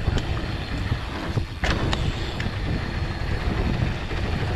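Mountain bike rolling down a dry dirt singletrack: wind rushing over the microphone and the tyres running on dirt, with a few sharp clicks and rattles from the bike, the loudest about a second and a half in.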